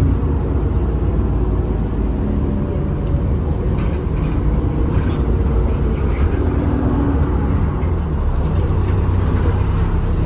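Alexander Dennis Enviro 400 double-decker bus running on the move, heard from on board: a steady low engine rumble with a faint hum over it.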